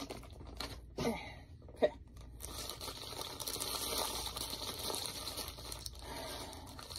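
Plastic wrapping crinkling as a small packaged item is unwrapped by hand, with a couple of sharp clicks in the first two seconds.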